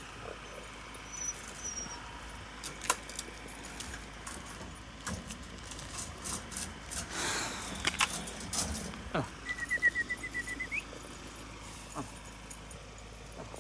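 Scattered metal clinks and rattles of a dog's chain and wire tether being handled as the dog is freed. About ten seconds in there is a short, rapid trill of repeated notes that rises at the end.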